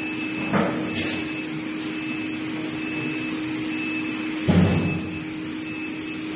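PCB router depaneling machine homing after a reset: a steady machine hum with an on-off high tone, and a few short knocks as its axes and conveyor return to their origin, the loudest about four and a half seconds in.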